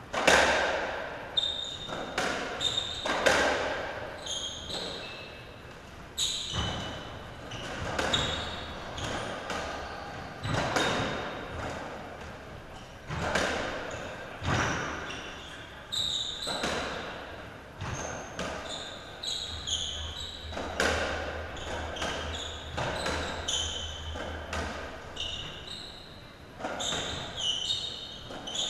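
A racketball rally: the ball is struck by racquets and bangs off the court walls and floor, a sharp knock every second or so, each ringing briefly in the enclosed court. Shoes squeak in short high chirps between shots.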